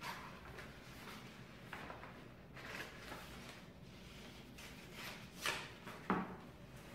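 Scissors snipping through pink colored paper in several separate cuts, then a sharp knock near the end as the scissors are set down.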